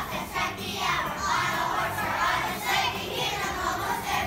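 Children's choir of young schoolchildren singing together, many voices at once.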